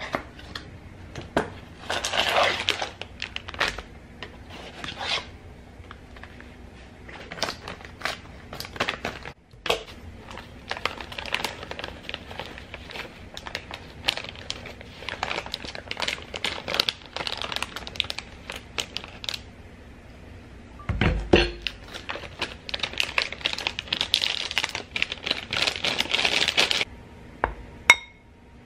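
Pancake mix packaging being handled: the cardboard box and its plastic inner bag crinkling and rustling in bursts as the powder is poured into a glass bowl, with a dull knock about two-thirds of the way through. Near the end, a metal spoon clinks against the glass bowl.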